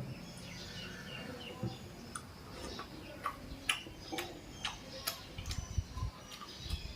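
Close-up chewing and lip smacking: an irregular run of sharp, wet mouth clicks, coming thicker from about halfway through.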